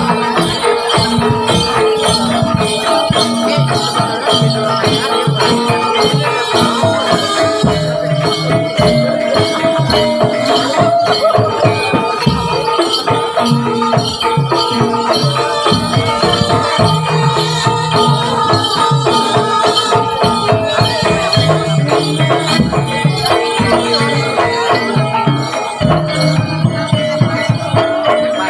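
Javanese kuda lumping accompaniment music playing continuously: close-set percussion strokes keep a steady beat under held melodic tones.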